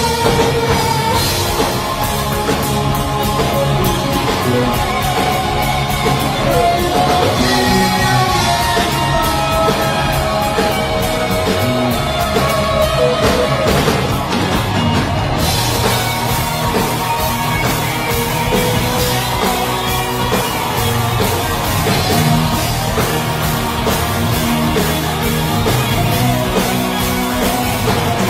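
Live heavy metal band playing loud and without a break: distorted electric guitars, bass and a drum kit, with keyboards, through the club's PA.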